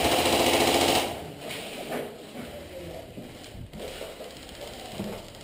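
Airsoft electric gun firing a rapid full-auto burst for about a second, a fast mechanical rattle, followed by a few faint knocks.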